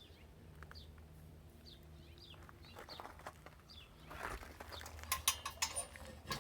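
Faint bird chirps over a low hum, then about four seconds in a run of rattling, scraping clicks as the gate fitted with the new wire-mesh snake fence is swung. The mesh drags a little along the ground.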